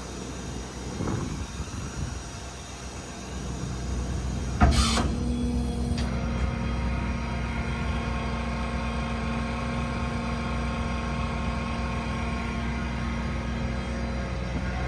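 The F-550's 6.7 L Power Stroke V8 diesel starting with a sudden loud burst, then settling into a steady idle.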